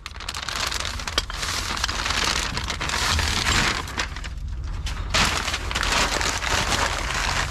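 Paper crinkling and rustling as it is handled, a crackly hiss that eases off about four seconds in and picks up again about a second later, over a low steady rumble.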